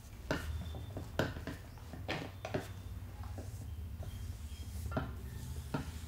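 Hands working over hair and scalp in an Indian head massage: rubbing and rustling with about six sharp clicks scattered through, over a steady low hum.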